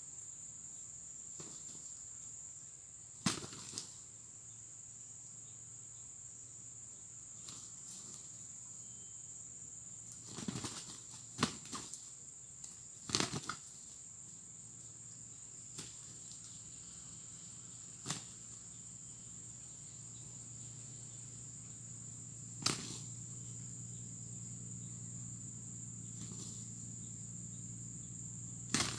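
Two roosters fighting: short bursts of flapping wings and scuffling strikes, a cluster around the middle and single ones later, over a steady high-pitched drone of insects.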